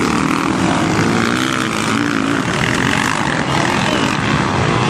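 Motocross motorcycle engines revving and running hard, their pitch rising and falling as the riders work the throttle.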